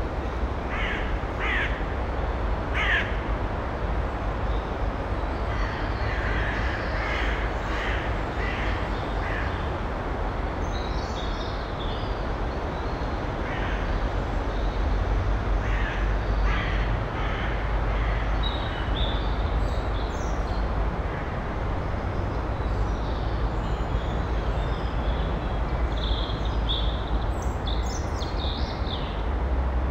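Short series of harsh, crow-like bird calls, with higher calls later on, over a steady low rumble of background noise.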